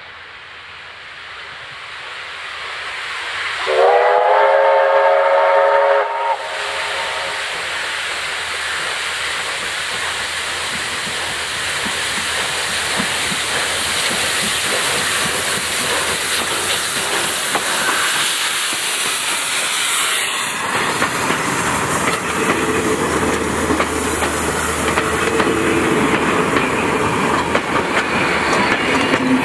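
Victorian Railways D3-class 4-6-0 steam locomotive D3 639 sounds one long whistle blast of about two and a half seconds, about four seconds in. The engine is then heard running and getting steadily louder as it approaches and passes. Its wooden passenger carriages follow, their wheels clattering on the rails near the end.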